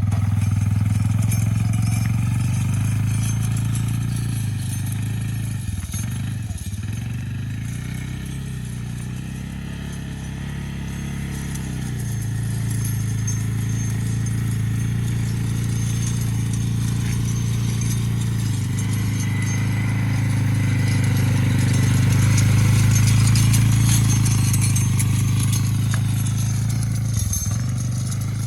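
Four-wheeler (ATV) engine running steadily while it tows a harrow drag across a field, fading as it moves away and growing louder again as it comes back around, loudest about two-thirds of the way through.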